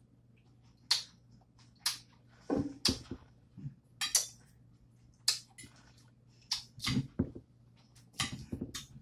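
Cutlery clicking and scraping against a salad dish while eating, a dozen or so irregular sharp clicks and knocks.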